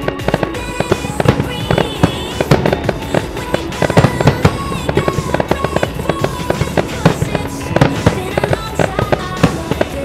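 Fireworks going off in quick succession: many sharp bangs and crackles, several a second, with no pause.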